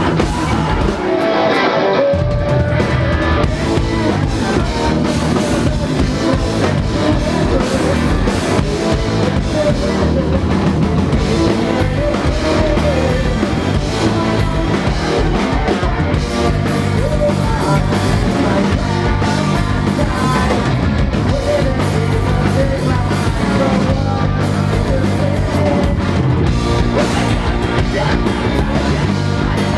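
A rock band playing live with guitar and drum kit, loud and continuous. The deep low end cuts out briefly about a second in, then the full band comes back in.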